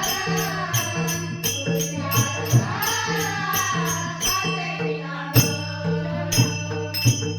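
Marathi devotional bhajan music: a wavering melody over a mridang drum and jingling hand percussion keeping a steady beat. The drum drops out for about a second past the middle and comes back with a strong stroke.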